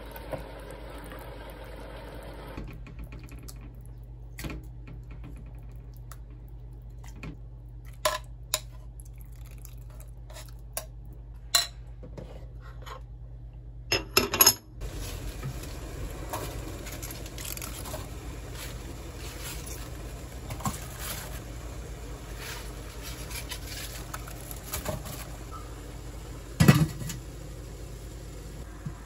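Kitchen dish sounds: scattered clinks of utensils and glassware, a glass lid clinking onto a glass jar about halfway through, and a loud clank from a stainless steel steamer pot lid near the end, over a steady low hum.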